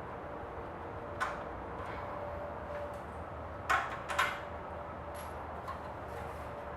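Hand tools clicking against motorcycle exhaust parts while a clamp and bolts are worked loose: one sharp click about a second in, then two more close together near the middle, over a steady low background hum.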